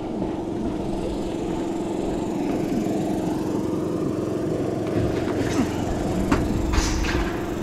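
A small engine runs steadily with a constant hum. From about five seconds in come a few sharp clanks as a long standing-seam steel roofing panel is lifted and flexed.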